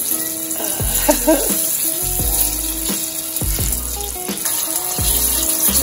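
Hot oil sizzling and bubbling steadily around a batter-coated, chocolate-covered strawberry deep-frying in a small saucepan, the oil hot enough to start smoking. Background music with a deep bass plays over it.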